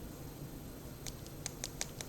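Small metal clicks as tools and pins work in a DOM IX10 dimple lock's cylinder while it is being taken apart: quiet at first, then a quick run of about six sharp, high clicks starting about a second in.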